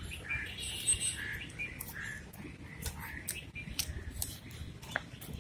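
Birds chirping in short repeated calls, over a steady low rumble.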